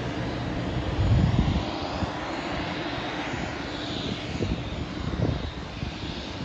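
Airliner engines running with a steady rumble and hiss, swelling louder in the low end about a second in and again near the end.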